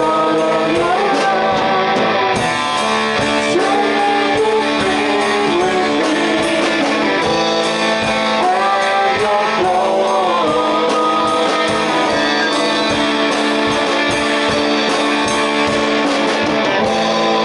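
A rock band playing a song, with guitars to the fore and a singing voice, at a steady loud level.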